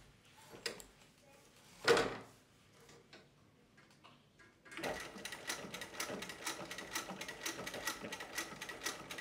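A single thump about two seconds in. Then, from about five seconds, a Juki LU-563 industrial walking foot sewing machine driven by a servo motor stitches steadily near its 500 stitches-per-minute top speed, a rapid, even clicking of needle and feed.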